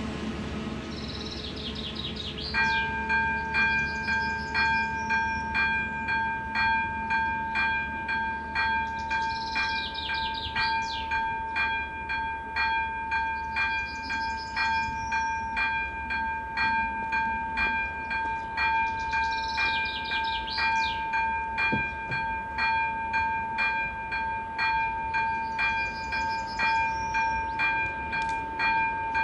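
Level crossing warning bell starting about two and a half seconds in and ringing in a steady, even rhythm of ringing strokes, signalling that the crossing has activated for an approaching train. A bird sings a short phrase every few seconds over it.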